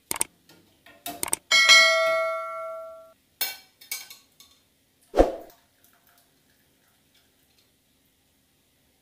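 A clicking sound effect, then a bell chime that rings out and fades over about a second and a half, from a subscribe-button animation. A few sharp knocks of a metal slotted spoon against the bowl and pan follow, the last one loudest.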